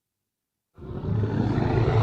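A deep, rough creature roar made from processed animal recordings starts suddenly out of silence just under a second in.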